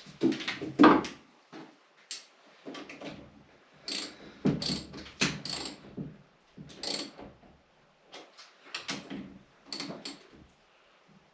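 Irregular clicks, knocks and clatter of parts and hardware being handled and fitted, a dozen or so separate strikes with short pauses between them.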